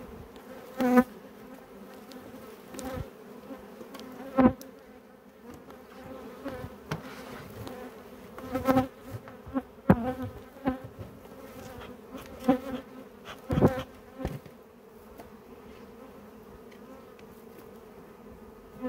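Honeybee colony buzzing as a steady hum, broken by several sharp knocks and clatters of wooden hive parts being handled through the first two-thirds, after which only the buzz remains.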